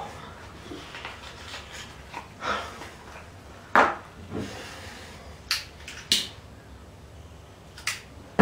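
A handful of short, separate knocks and clatters, about six spread over several seconds, the loudest nearly four seconds in and another at the very end.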